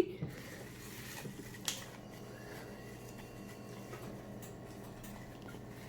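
Quiet room tone with a faint steady hum, broken by a single small click about one and a half seconds in.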